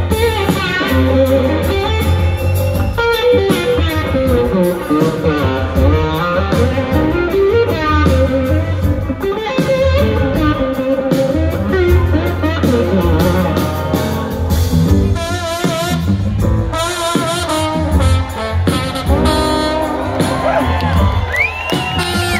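A live blues-rock band plays loudly, heard from within the audience. An electric guitar takes the lead with gliding, bending notes over bass and drums.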